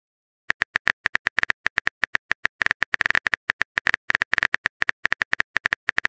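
Phone keyboard typing clicks, rapid and irregular at several taps a second, starting about half a second in, as a text message is typed out letter by letter.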